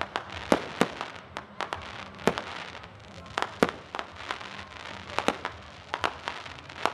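Fireworks display: an irregular rapid series of sharp bangs from bursting shells, about three a second, over a steady crackle.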